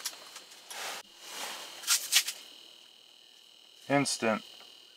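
Brief rustling and handling noises, then a faint steady high electronic whine, with a short spoken word or two near the end.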